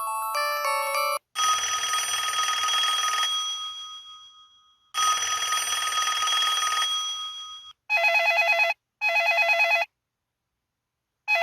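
Bell-type ringtones of an LG SV9140 mobile phone. Near the start, a melody ringtone ends. Then a trilling telephone-bell ring sounds twice for about two seconds each, each time fading away. Then a lower bell ring comes in two short rapid bursts, pauses, and starts again at the end.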